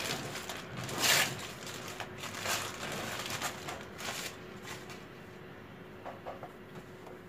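Baking paper rustling and crinkling in several bursts as it is peeled off a chilled sheet of butter, loudest about a second in. It then gives way to quieter handling of the butter on the dough.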